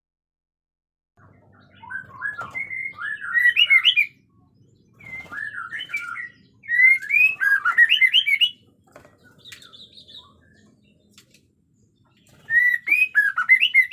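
White-rumped shama (murai batu) singing in bursts of quick, varied whistled phrases. The song starts about two seconds in, and the bursts are separated by short pauses.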